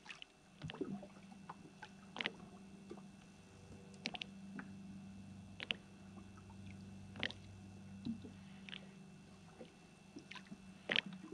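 Faint water lapping and clicking against a small boat's hull, with small scattered clicks over a low steady hum.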